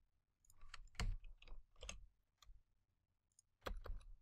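Irregular clicks of a computer keyboard and mouse as lines of code are copied and pasted, about eight sharp clicks with a heavier one about a second in.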